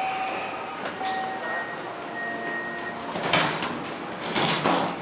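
Schindler hydraulic elevator's doors sliding, a noisy swell about three seconds in and another near the end, with faint steady tones in the first half.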